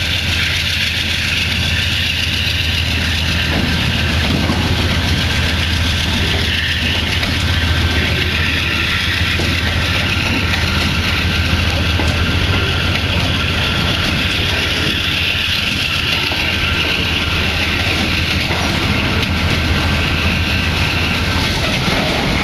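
Diesel-hauled freight train rolling past: a steady low drone under the rumble and rattle of rail cars on the track, with a faint thin whine that fades out near the end.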